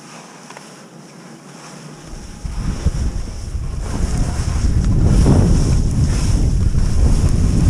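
Wind rushing over an action camera's microphone as a skier picks up speed downhill, with skis scraping over wind-crusted snow. It is faint at first, then about two seconds in it turns into a loud rumble that keeps building.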